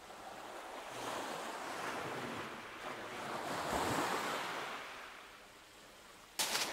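Small waves breaking on a shingle beach: the wash swells over a few seconds and then drains away. A sharp clatter starts just before the end.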